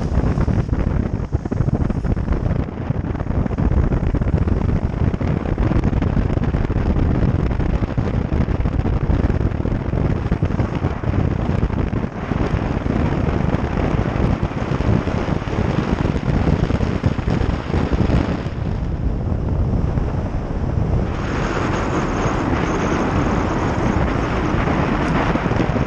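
Car driving on a wet, slushy road: steady wind rumble on the camera's microphone with tyre and road noise. A stretch of brighter hiss comes about four-fifths of the way through.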